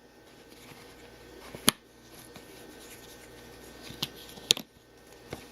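Small plastic vacuum actuator being taken apart by hand: faint rubbing and a few sharp plastic clicks as the rubber membrane is worked out of its housing.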